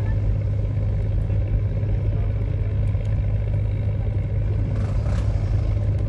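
Steady low engine hum, like a motor idling, with a brief noisy swish about five seconds in.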